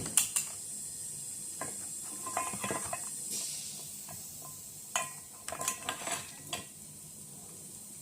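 Small hard parts and tools clicking, tapping and clinking as they are handled, over a steady hiss. The clicks come in clusters: just at the start, around two to three seconds in, and again around five to six and a half seconds in.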